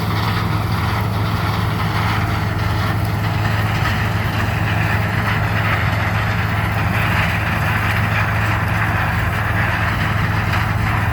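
Harvest machinery engines running steadily: an unbroken low engine drone with a constant hum.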